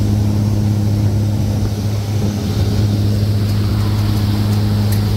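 Fishing boat's engine running at a steady pace, heard on board as an even low drone over a hiss of wind and water.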